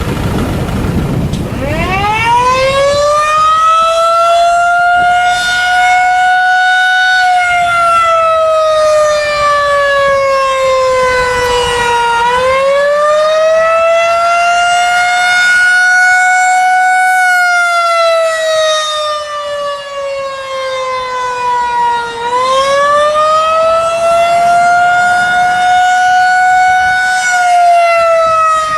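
Federal Signal 2001-SRN rotating electromechanical tornado siren sounding its Attack signal. It winds up about two seconds in, then its pitch sinks and rises in slow swells of about five seconds each, over and over.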